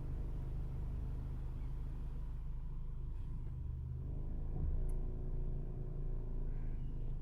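Mercedes All-Terrain engine running steadily under the hood, with a rattle that the owner puts down to loose plastic parts and poor build quality.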